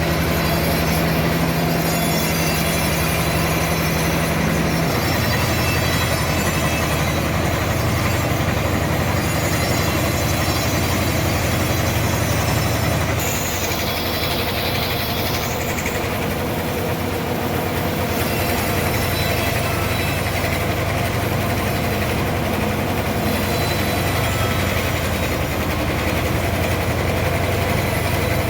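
Sawmill saw running steadily through a trembesi (rain tree) log, a continuous machine sound with a high squealing whine. Its low hum drops in pitch about five seconds in, and the level dips slightly around thirteen seconds.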